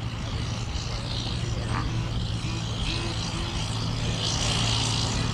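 Heavy diesel water truck's engine running steadily as it drives, with the hiss of its water spray, louder about four seconds in.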